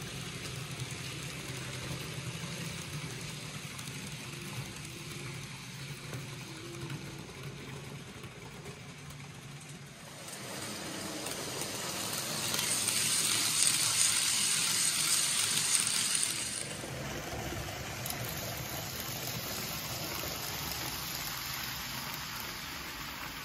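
N gauge model trains running on the layout track: a steady low hum with a light hiss of wheels on rail. From about ten seconds in it swells into a loud high hiss as a train runs close by, then drops back suddenly after about six seconds.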